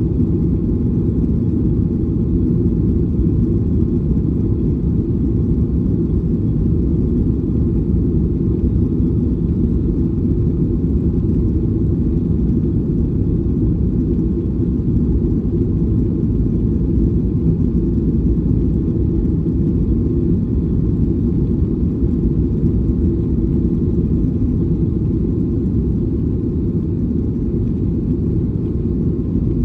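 Steady low rumble of an airliner's jet engines and airflow, heard from inside the passenger cabin, even and unchanging throughout.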